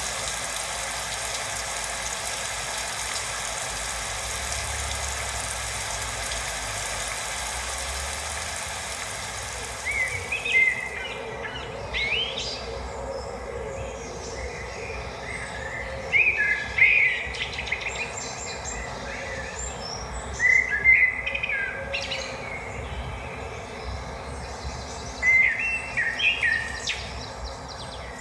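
A steady rushing noise for about the first ten seconds, then birds chirping and calling in short clusters every few seconds over a quieter steady background.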